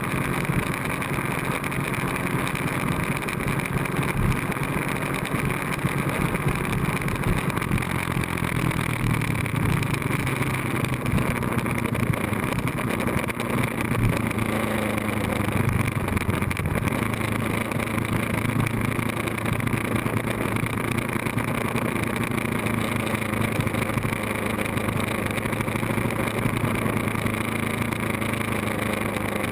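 Ducati 1098S sportbike's L-twin engine running at road speed, under a steady rush of wind on the microphone. The engine note shifts in pitch in the middle as the revs change through the bends.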